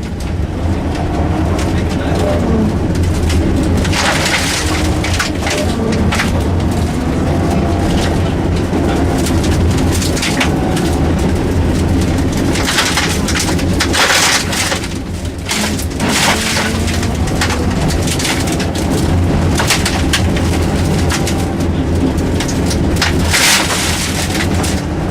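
Rally car driven hard on a special stage: the engine revs rise and fall through gear changes and corners, with bursts of road and stone noise and knocks from the car running over the surface.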